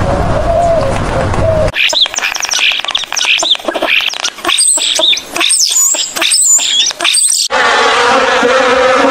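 A laughing kookaburra's rapid, chattering cackle of quick rising and falling notes starts suddenly about two seconds in and lasts several seconds. Near the end it gives way to a bumblebee's steady buzz. Before the cackle there is a steady rushing noise.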